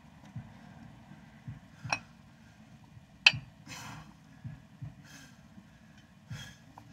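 Plate-loaded dumbbells clicking sharply twice, the second knock loud, as they are worked through reps. Between the clicks come a few short, breathy exhales, over a low steady rumble.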